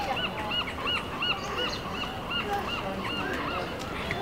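Prairie dog barking a fast run of short, arched chirps, about five a second, fading out after about three seconds.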